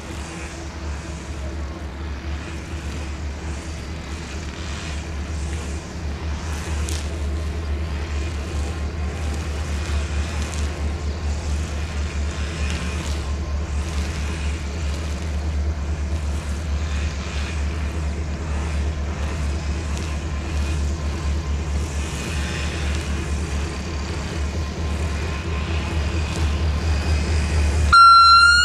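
Diesel shunting locomotive running with a steady low throbbing engine note during shunting moves. Near the end a short, loud, high horn blast sounds.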